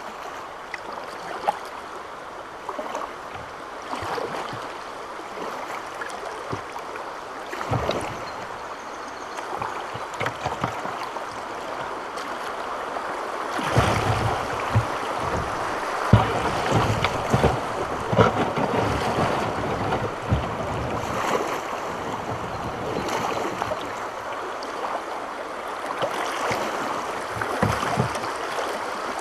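Fast, shallow river water rushing over a riffle around a kayak hull, growing louder about halfway in as the boat enters the fast stretch, with scattered short knocks against the hull.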